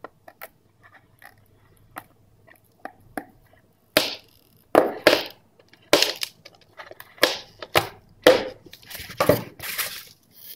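Folding-knife blade cutting through a block of expanded polystyrene foam packing. A few faint clicks come first, then from about four seconds in a series of short cutting strokes, coming closer together near the end.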